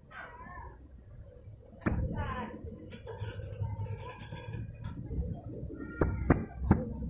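Blue-crowned hanging parrot (serindit) calling: one sharp, shrill high note about two seconds in, a stretch of thin high chatter, then three more sharp high notes in quick succession near the end.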